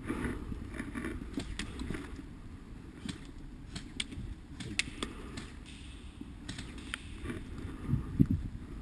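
Slow footsteps on pavement and scattered faint clicks and rattles from gear and a replica rifle being carried, over a low steady rumble.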